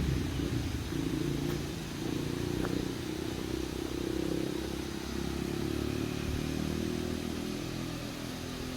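A motor vehicle passing on the road, its engine running steadily and then fading over the last couple of seconds.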